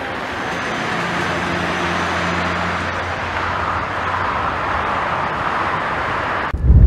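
Steady jet airliner engine noise. Near the end it cuts off abruptly and gives way to a low rumble of wind buffeting the microphone.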